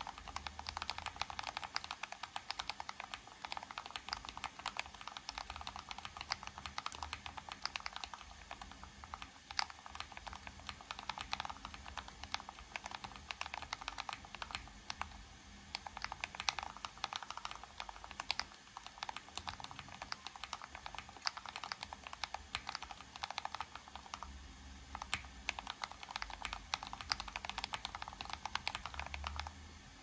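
Fast continuous typing on a split mechanical keyboard: a dense run of key clicks at about 88 words a minute that stops near the end.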